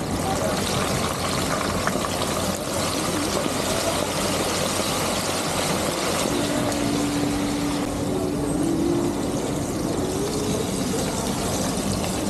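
Floured frog pieces deep-frying in a wok of hot oil: a steady sizzle over the constant roar of the stall's gas wok burner.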